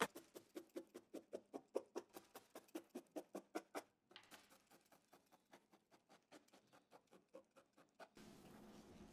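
Barbed felting needle stabbing again and again into wool on a felting pad: a quick run of soft pokes, about five a second, growing fainter and sparser after about four seconds.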